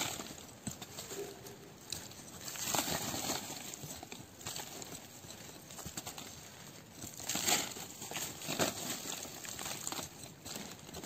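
A small hand-held metal digging blade scraping and prying into dry soil and leaf litter around a small tree's root base, in irregular scraping strokes a second or few apart, with crumbling soil and crackling dry leaves.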